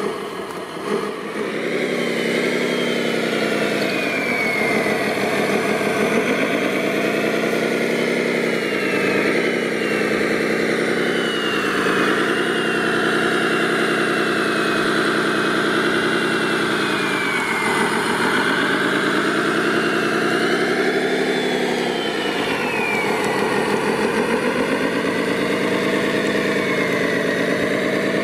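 Radio-controlled construction machine running, its engine note dipping and rising again every few seconds, with a high whine gliding up and down above it.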